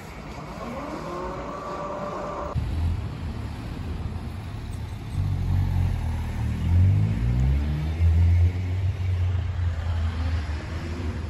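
Keio Line electric train's traction motors whining upward in pitch as it pulls away, cut off sharply after about two and a half seconds. After that a road vehicle's engine rumbles low and revs up twice, about halfway through and again near the end.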